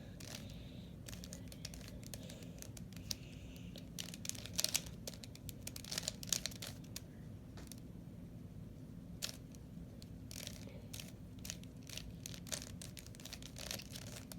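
Plastic 3x3 Rubik's Cube being turned by hand: irregular quick clicks and clatters as the faces are twisted through an algorithm, in bursts with short pauses. There is a faint steady hum underneath.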